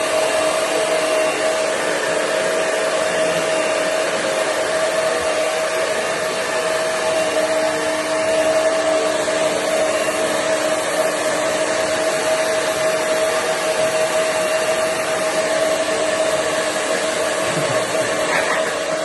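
Handheld hairdryer running steadily: an even blowing hiss with a constant motor hum.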